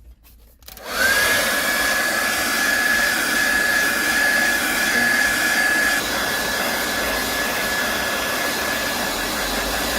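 Hair dryer switched on about a second in and blowing steadily, with a high whine from its motor that rises as it spins up. It is heating a phone's back cover so the cover can be pried off.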